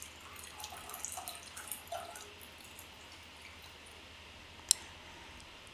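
Dashi stock dripping and trickling from a paper-towel-lined mesh strainer into a stainless steel bowl. It is a faint, irregular run of small drips and splashes over the first two seconds or so, thinning out after that. A single sharp click comes near the end.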